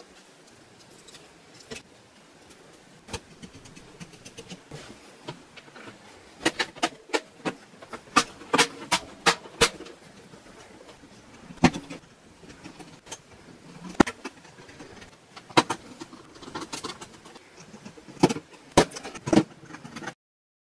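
Sharp plastic clicks and snaps, many in quick runs, as a Dell Latitude 5490 laptop's battery is seated and its plastic rear cover is pressed back into its clips. A screwdriver works the cover screws near the end.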